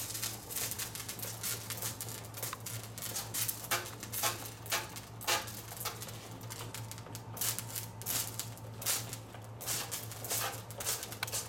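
Toy fire truck's hand water pump pressed over and over: irregular plastic clicks and squirts as water sprays from the nozzle.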